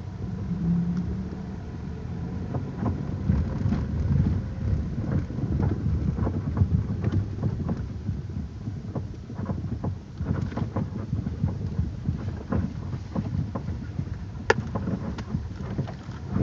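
Inside the cabin of a moving Lada Vesta: steady low road and tyre rumble with scattered short creaks and sharp knocks from the suspension going over bumps, one sharper knock near the end. The car has covered just over 2,000 km.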